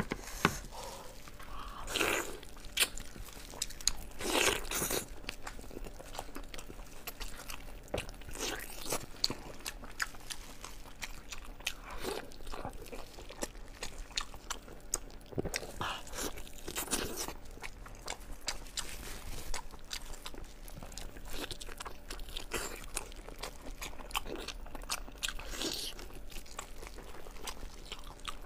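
Close-miked eating of sheep's head meat: gloved hands tearing the meat apart, then biting and chewing, heard as many short crunches and clicks, the loudest in the first few seconds.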